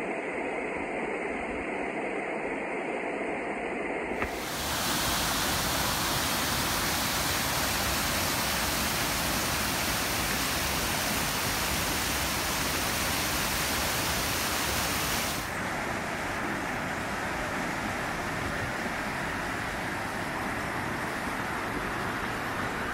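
Mountain creek rushing and cascading over granite slabs and rocks, a steady roar of water. It grows louder and fuller about four seconds in and turns a little duller about fifteen seconds in.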